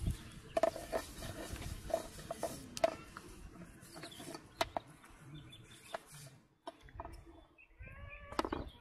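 Chickens clucking in short, scattered calls, with a longer run of calls near the end.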